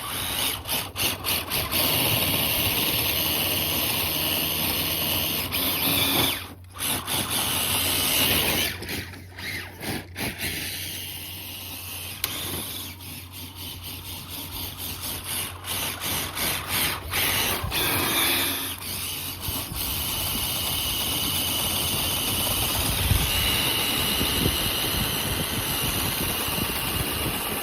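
RC crawler's brushless motor and geared drivetrain whining under throttle, switched on and off in short bursts for the first twenty seconds or so, then running steadily near the end.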